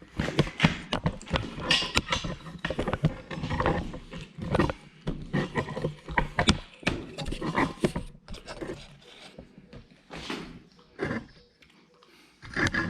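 Irregular clicking, knocking and rattling of hands handling motorcycle parts while removing a clutch cable, busiest in the first few seconds, then sparser, with a short lull before a last cluster of clicks.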